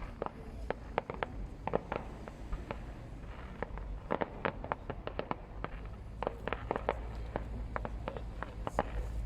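Fireworks display heard from a distance: an irregular, rapid string of sharp bangs and crackles, several a second, over a steady low rumble.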